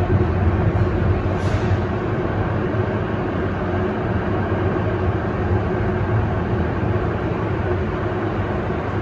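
MTR East Rail Line R-train electric multiple unit pulling out and running past, a continuous rumble of wheels on rail with a steady motor hum, easing slightly toward the end.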